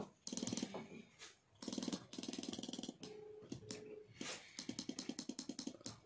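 Motorcycle hazard indicator flasher unit running one of its flash modes: runs of rapid ticking, broken by short pauses in step with the flash pattern, with two short beeps a little past the middle.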